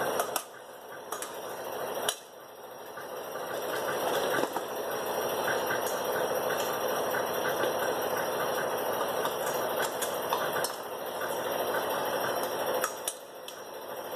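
Water boiling in a stainless steel pot, a steady bubbling hiss. In the first two seconds a couple of knocks and splashes come as the Brussels sprouts go in, and the bubbling drops each time, then builds back to a steady boil.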